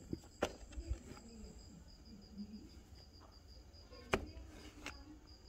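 Pickaxe striking into earth: a few sharp hits, the loudest just under half a second in and about four seconds in. Crickets chirp steadily throughout with a fast, high trill.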